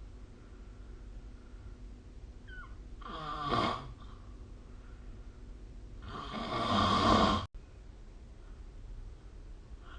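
A person snoring in sleep: two snores, a shorter one about three seconds in and a longer, louder one from about six seconds that cuts off abruptly.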